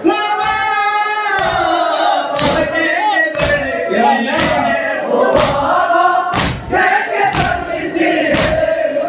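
Crowd of Shia mourners chanting a noha together, with a loud, unison thump of hands beating on chests about once a second (matam).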